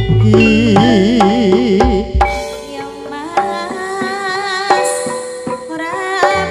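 Campursari music played live: drum strokes over keyboard and a deep bass line, with a wavering pitch-bent melody in the first two seconds. About halfway through, a high female voice comes in singing a Javanese melody with heavy vibrato.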